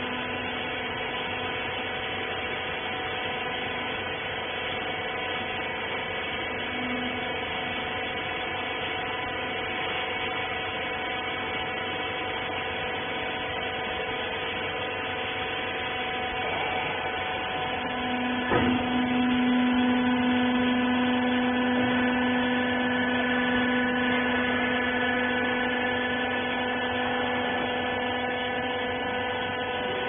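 Hydraulic rag baler's electric motor and pump running with a steady whining hum. About two-thirds of the way through there is a single click, and then a low tone in the hum grows louder and holds.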